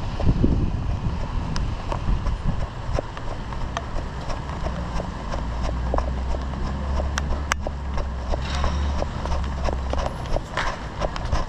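A runner's footsteps in an even beat of about three steps a second. A low rumble swells in the middle.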